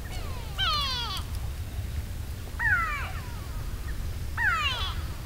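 An animal calling three times, each a falling cry about half a second long, spaced about two seconds apart.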